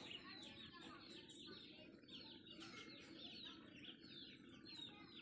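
Faint chirping of birds: many short falling calls, rapid and overlapping.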